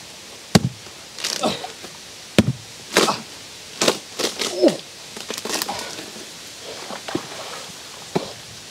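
A machete chopping into a wet, rotting log: a string of uneven strikes, about one every second.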